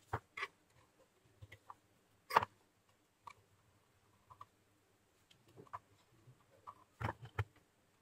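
Scattered light clicks and taps of hands and tools handling a phone's plastic housing, with the sharpest tap about two and a half seconds in and a quick cluster near the end.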